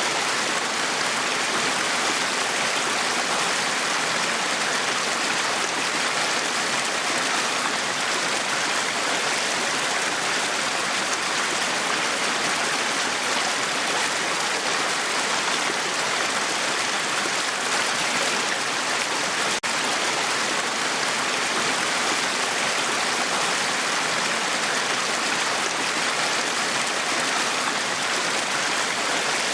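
Small brook running over stones: a steady babbling rush of water, with one momentary dropout about two-thirds through.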